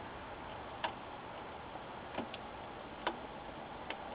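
A handful of faint, scattered clicks and taps from a small flat-cable connector and the metal-shielded control board being handled while the panel cable is lined up to slide into its socket.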